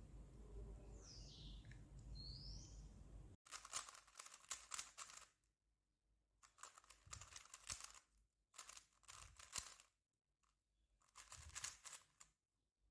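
A low steady hum with two short chirps, then after a sudden break four bursts of rapid clicking and rustling as a 3x3 speedcube and its packaging are handled.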